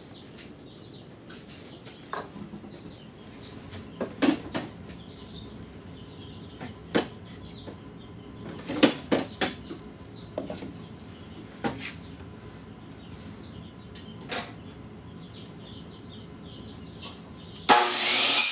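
Scattered knocks and clacks of PVC pipe fittings being handled, over faint bird chirping. Near the end a saw starts cutting through the PVC pipe, suddenly and loudly.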